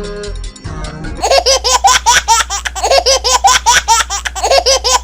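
Children's cartoon music, then about a second in a loud, high-pitched laughter sound effect of rapid, evenly repeated 'ha' syllables, about five a second, over a steady low hum.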